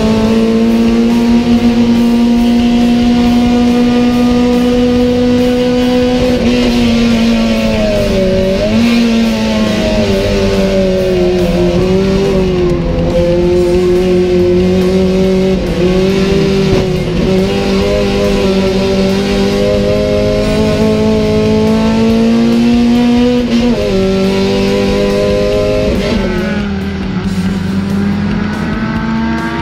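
Race car engine heard from inside the cockpit, held at high revs, its note dropping and climbing back several times as the driver lifts and shifts through corners. Guitar music plays along with it.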